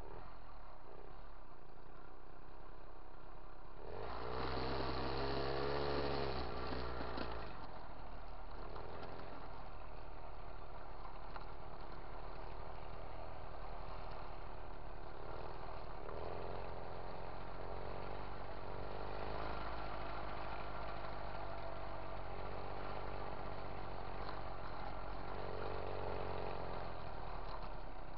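Moped engine running steadily while riding. A louder passage from about four to seven seconds in has a pitch that rises and falls.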